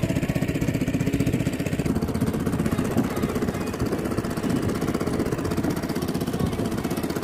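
Engine of a small wooden passenger boat running steadily under way, with a rapid, even chugging pulse.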